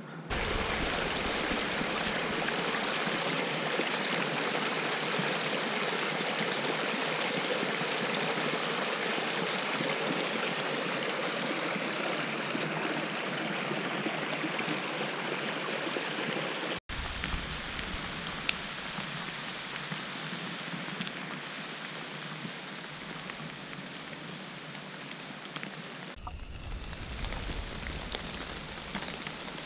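Steady hiss of rain and running water from a small woodland stream. It breaks off in an abrupt cut about halfway through and goes on a little quieter, with another abrupt change near the end.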